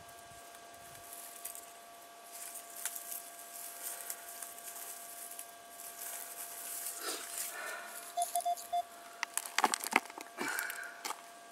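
Hands scraping and picking through dry soil and grass, crackling and rustling, busiest in the last few seconds as dirt is put into a plastic scoop. A faint steady electronic tone runs underneath, with three short quick beeps about eight seconds in.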